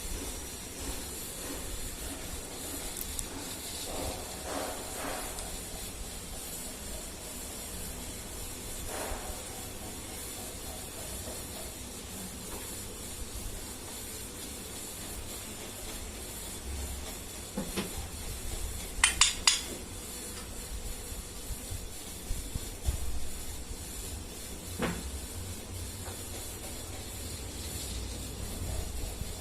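Indian ringneck parrot feeding on roti: a few faint taps and knocks over a steady hiss, and a brief cluster of short, sharp, high calls about two-thirds of the way in.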